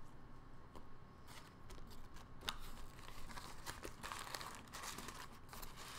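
Paper food wrapper crinkling and rustling as it is handled, faint at first with a few light crackles and fuller from about two-thirds of the way in.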